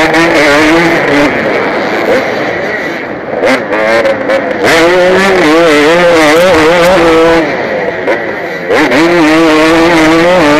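KTM 250 motocross bike's engine, heard from the rider's helmet, revving up and down as the throttle is worked during a race. It eases off twice, about two seconds in and again about three-quarters of the way through, before pulling hard again.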